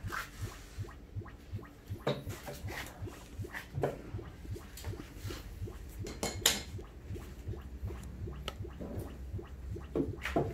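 Scattered light clicks and knocks from handling tools and objects, the loudest about six and a half seconds in, over a faint steady low hum.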